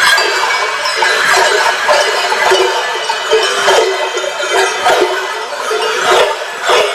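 Many large cowbells strapped to the backs of Sardinian Mamutzones carnival maskers clanging together as the figures march, in loud, irregular surges.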